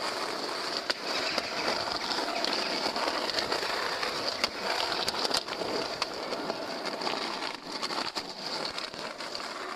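Skateboard wheels rolling over rough pavement: a steady gritty noise with scattered clicks and ticks.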